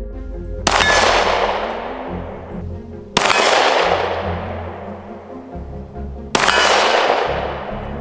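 Three 9x19 mm pistol shots, each a sharp report trailing off in a long fading tail, the shots about three seconds apart, over background music.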